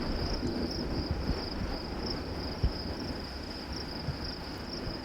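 Insect chorus, a steady high-pitched trill, over low wind rumble on the microphone.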